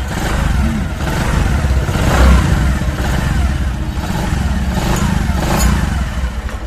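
Bajaj Platina 100's single-cylinder four-stroke engine running steadily, just rebuilt with a new 94-link roller timing chain, with no timing chain rattle to be heard.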